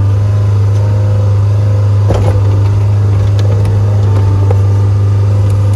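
Skid steer engine running steadily at working speed, with a metallic clank about two seconds in and a few lighter knocks after it.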